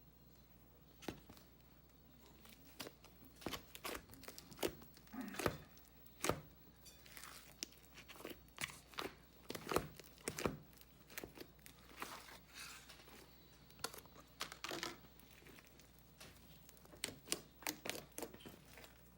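Handmade slime squished and pulled by hand, giving off a run of irregular sharp pops and crackles, with a short lull about two-thirds of the way through.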